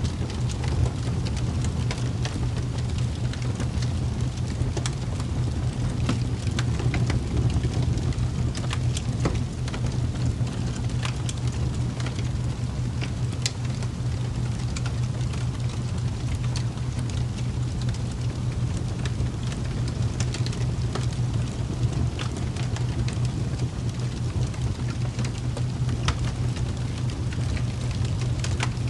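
Steady rain ambience used as a sleep track: an even hiss with scattered sharp drop ticks over a low steady hum.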